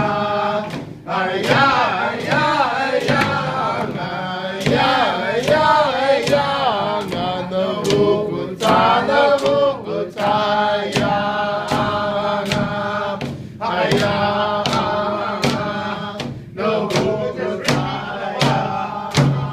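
A group of singers chanting an Inupiaq dance song to a steady beat on Inupiaq frame drums (qilaun), the drum strikes coming a little under two a second.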